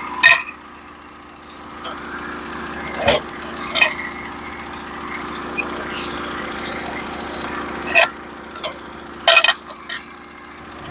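Norwood HD36v2 portable sawmill's engine running steadily, with about five sharp knocks and clanks over the steady hum as the cant is worked on the mill.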